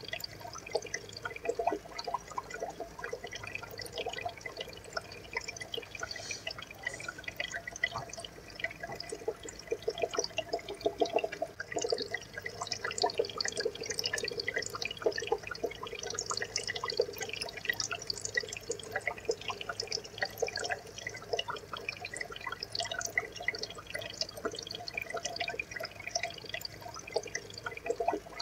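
Aquarium water trickling and bubbling, with a steady stream of tiny drips and pops.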